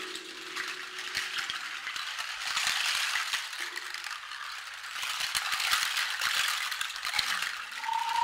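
Rattle made of a bundle of hard dried seed pods strung on cord, shaken and rubbed in the hand: a dense, dry clatter of many small clicks that swells and eases in waves. A low ringing tone dies away in the first second, and a steady, higher ringing tone starts near the end.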